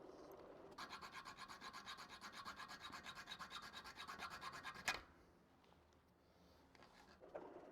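A hand tool working on the miter saw's metal fence hardware: a fast, even run of rasping strokes, about eight a second, for about four seconds, ending in one sharp click.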